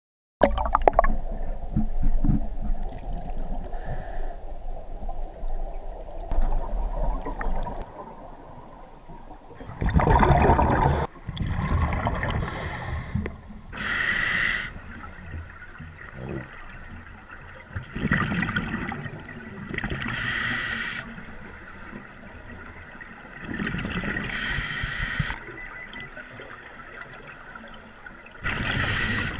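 Underwater scuba breathing: a regulator hissing on the inhale and exhaled bubbles rushing up past the microphone, recurring every few seconds.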